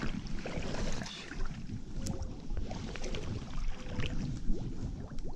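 Wind rumbling on the microphone, with scattered faint clicks.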